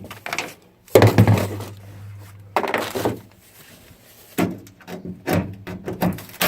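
Knocks and clunks of work on a pickup tailgate's inner panel while its bolts are being taken off: a loud knock about a second in with a low hum lingering after it, another near three seconds, then lighter clicks near the end.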